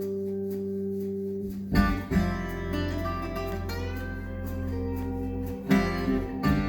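Guitar music played back through Magnepan LRS planar loudspeakers with subwoofers. A held chord gives way to a louder passage with deep bass about two seconds in, and there is another strong accent near the end.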